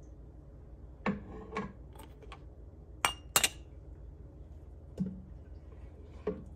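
A stainless steel canning funnel clinking against the rims of glass canning jars as it is moved from jar to jar. There are about six sharp clinks and knocks, with the loudest pair close together a little past three seconds in.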